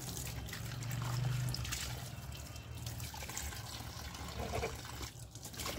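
Tap water running and splashing in a steel kitchen sink as dishes are rinsed, with a few faint knocks of crockery.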